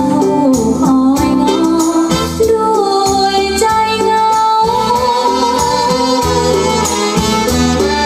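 Music with singing and instruments played back through a pair of home-built loudspeakers.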